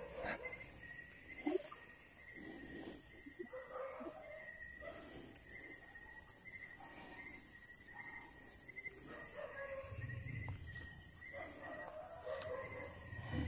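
Night insects: a steady high-pitched insect trill with a cricket chirping over it, several short chirps a second.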